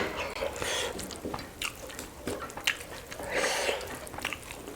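Close-up eating sounds: chewing and wet squishing of chicken curry with rice, with scattered small clicks and smacks.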